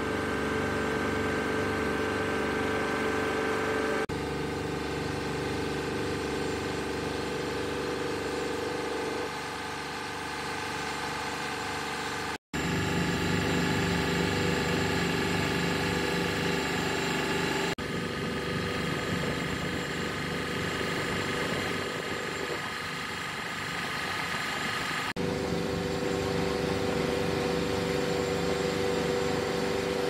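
Motorboat engine running steadily with the boat under way, a constant hum with several steady tones. The sound drops out briefly about twelve seconds in and shifts slightly in level at a few points where the clips are joined.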